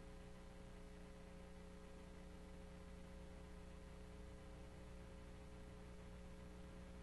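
Near silence: a steady low electrical hum with faint hiss, and no voice.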